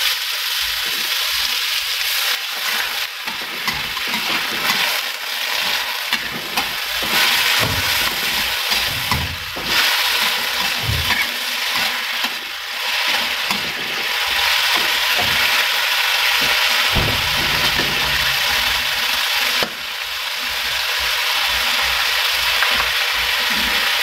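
Green bell pepper and mushrooms sizzling in a wok with a little added water, stirred with a metal spatula. There is a steady frying hiss with now and then a short scrape or knock of the spatula against the pan.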